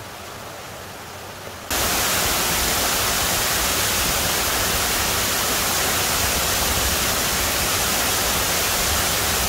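Mountain stream water running over rocks, then about two seconds in a sudden jump to the louder, steady rush of a waterfall pouring into a rock pool.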